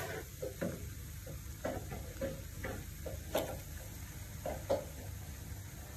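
Eggs cracked and dropped into a kadai of broccoli stir fry over a low flame: faint sizzling, with a few light taps and scrapes of eggshell and wooden spoon, the sharpest about three and a half seconds in.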